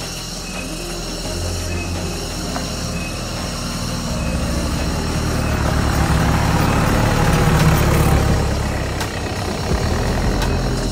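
A motor vehicle's engine running steadily, growing louder over several seconds as it comes close and peaking about eight seconds in, with a few sharp clicks near the end.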